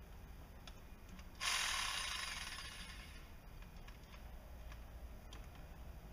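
Scattered clicks and ticks of hand tools at work on a car door, with a sudden loud hiss about a second and a half in that fades away over about a second and a half.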